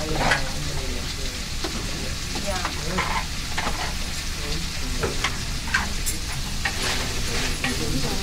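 Chopped vegetables sizzling in hot oil in a pan while being stirred, with irregular scrapes and clicks of the spoon against the pan.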